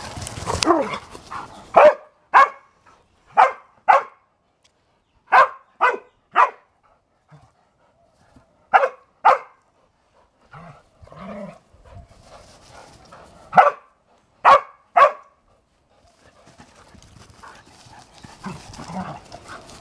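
A dog barking in play, in quick pairs and triplets of sharp barks, about a dozen in all, with short quiet gaps between the bursts.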